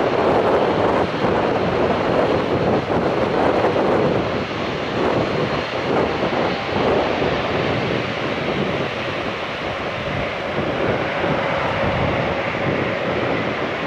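Pratt & Whitney PW150A turboprop engines of a Dash 8-400 running at low taxi power, a steady rushing engine noise with wind on the microphone. A faint steady whine comes in during the second half.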